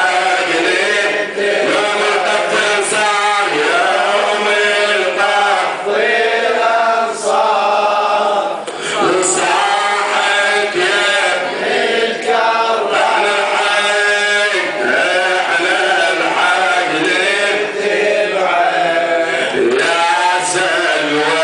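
A man chanting a religious recitation into a microphone, with a group of men's voices chanting along in unison.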